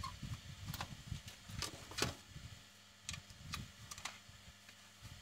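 Scattered light clicks and taps of a plastic WiFi modem case being handled and turned over on a bench, about six over a few seconds, with low rumbling handling noise underneath.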